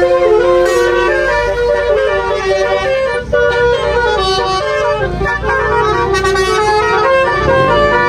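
Multi-tone telolet horn (Basuri type) fitted to a car, blaring a tune of rapidly changing notes.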